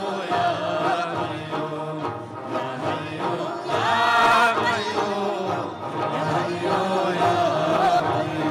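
Voices chanting a Burushaski ginan, a devotional hymn, in chorus over plucked long-necked lutes, with a steady low note underneath. A louder, higher sung phrase comes about four seconds in.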